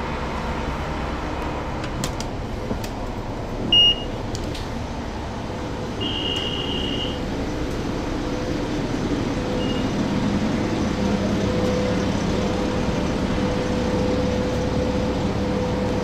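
A 1994 TMC RTS transit bus's Detroit Diesel Series 50 inline-four engine running steadily, heard from inside the bus, growing a little louder from about ten seconds in. A short high beep about four seconds in and a longer, second-long beep about six seconds in.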